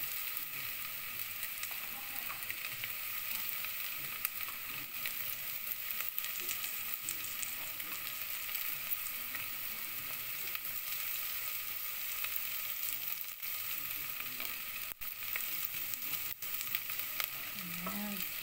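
Sliced onion and garlic sizzling in hot oil in a stainless steel pot, a steady hiss as the aromatics are sautéed (gisa) for a soup base. A wooden spoon stirs them near the end.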